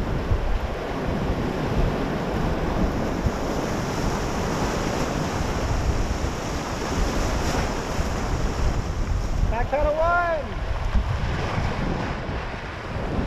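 Whitewater rapid rushing around the raft, a dense steady roar of water, with wind buffeting the microphone. About ten seconds in, a short high call rises and falls once.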